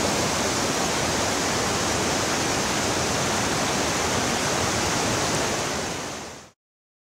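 Creek water rushing through whitewater rapids over boulders, a steady rush that fades out about six seconds in.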